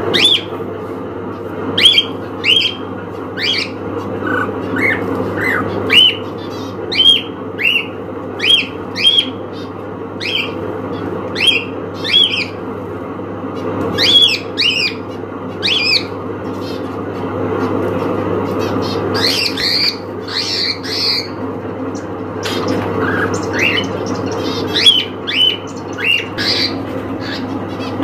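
Cockatiel calling: short, sharp squawking calls, each sweeping quickly upward, repeated roughly once a second, with a quick run of higher chirps about twenty seconds in.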